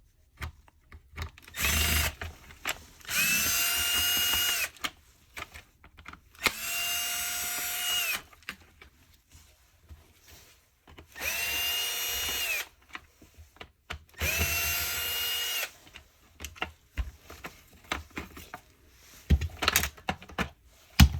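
Cordless power screwdriver running in five short bursts of a second or two each. Each burst spins up to a steady whine and winds down, with clicks and handling knocks in between, as screws are backed out of a Dyson Cinetic Big Ball cleaner head.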